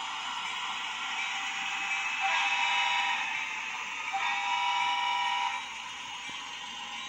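A TCS WOWDiesel sound decoder in an HO scale F7 diesel locomotive sounds a diesel air horn through the model's small speaker: two blasts, a one-second one about two seconds in and a longer one just after four seconds. Under the horn there is a steady, thin, hiss-like running sound with no low rumble.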